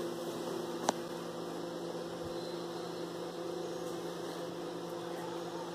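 Steady electrical hum of room tone, with one short click about a second in.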